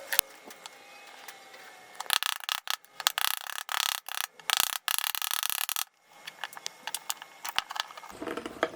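Quick, irregular rubbing and scraping strokes, as in hand finishing of the knife, running for about four seconds before stopping abruptly, with scattered sharp clicks before and after.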